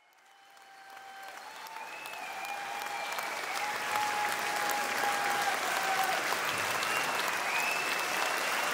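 An audience applauding, fading in from silence over the first few seconds and then steady. A few long held notes sound above the clapping.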